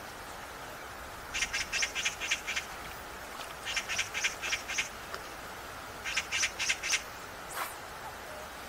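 A bird calling in three bursts of quick, harsh, evenly spaced notes, over a steady outdoor background hiss, with one brief whoosh near the end.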